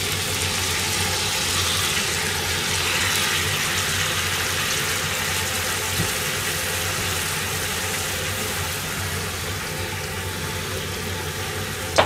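Pan juices poured into a hot cast-iron sukiyaki pot of browned chicken legs, then sizzling and bubbling steadily as the liquid simmers, easing off slightly toward the end. A steady low hum runs underneath, with a light knock about six seconds in.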